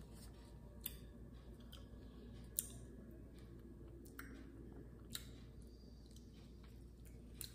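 Faint mouth clicks and lip smacks from eating an ice cream cone, about six short clicks spread out over a low, steady room hum.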